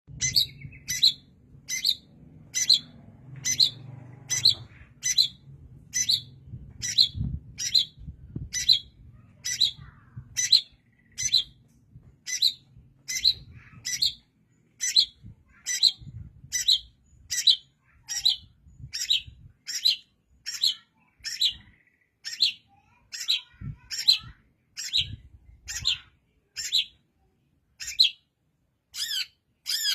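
Long-tailed shrike (cendet) calling steadily: short, harsh, scratchy notes repeated evenly, about three every two seconds.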